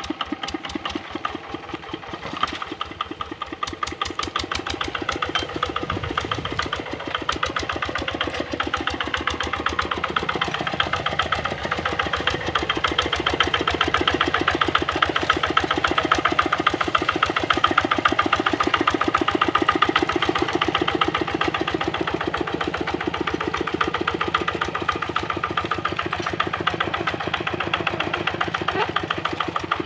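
Kubota RD65 single-cylinder diesel engine on a Quick Capung Metal hand tractor, running steadily with a fast, even chug of firing strokes. It grows somewhat louder about ten seconds in, then eases a little.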